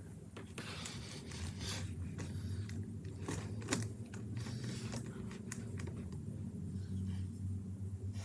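Light, irregular plastic clicks and scrapes of a partly disassembled Rubik's cube and its pieces being handled and lubricated, over a steady low hum.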